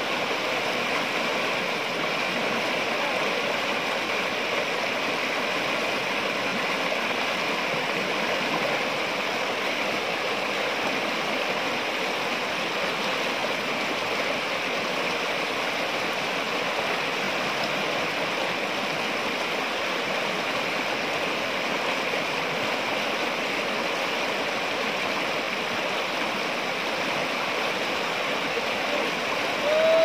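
Rocky river rapids: water rushing and splashing over boulders in a steady, even rush, with a short rising tone right at the end.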